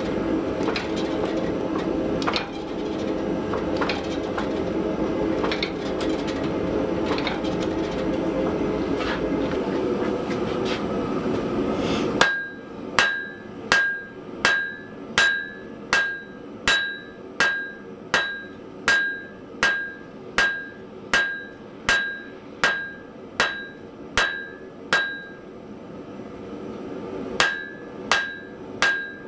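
Blacksmith's hammer striking hot steel on an anvil, drawing out bar stock: steady blows about one and a half a second, each with a clear anvil ring, with a short pause near the end before they resume. Before the hammering starts there is a steady droning machine noise with faint regular knocking.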